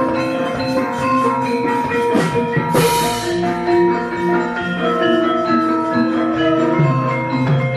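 Javanese gamelan playing: bronze metallophones ring out overlapping, sustained notes over a low pulse. There is a short crash about three seconds in.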